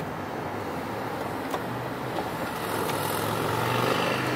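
Electric power-seat motor of a 2009 Mercedes-Benz S63 AMG running as the front seat is adjusted: a low steady hum that grows louder through the second half.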